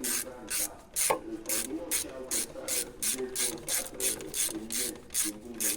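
Hand ratchet wrench being worked back and forth, its pawl clicking in quick, even strokes about two and a half times a second.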